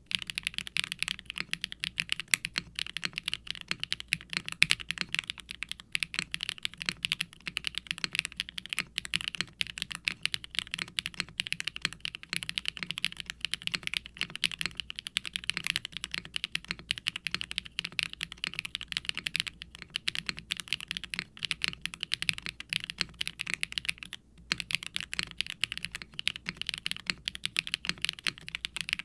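Continuous typing on a HIBI June mechanical keyboard, a silicone case with an FR4 plate, tray mount and no dampening, fitted with HMX Poro linear switches and GMK keycaps. The keystrokes are rapid, irregular and sound clacky and bright, with a brief pause near the end.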